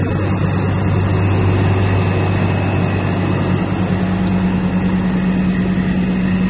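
Diesel engine of a heavy dump truck, a Caterpillar C12, idling steadily as a deep, even drone with a faint high whine over it.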